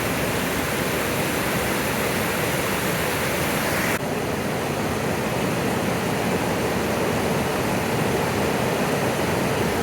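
Waterfall: a steady rush of falling water. About four seconds in the sound shifts abruptly, with slightly less hiss.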